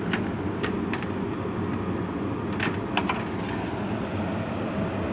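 Window air conditioner's fan motor running with a steady hum, the compressor not running. Several sharp clicks come over it in the first three seconds as the front filter cover is handled.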